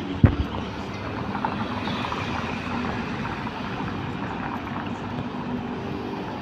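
Steady road and wind noise from riding a bike over brick paving, with a car driving close by. One sharp thump comes just after the start.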